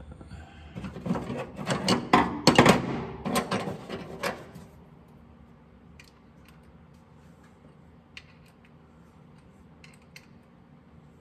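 Hand tools clicking and rattling against metal parts for about four seconds, then a few faint scattered clicks.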